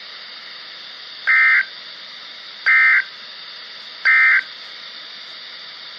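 Emergency Alert System digital data bursts: three short, identical, buzzy warbling chirps about a second and a half apart, over steady radio hiss. Their shortness marks them as the end-of-message code that closes the alert.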